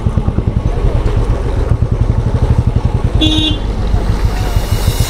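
Motorcycle engine running steadily with a quick, even low pulse, and a short horn toot about three seconds in.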